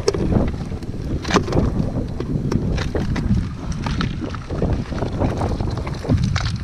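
Wind buffeting the microphone in a steady low rumble. Scattered sharp clicks and knocks come through it as hands pick among wet stones and shells in a rock crevice.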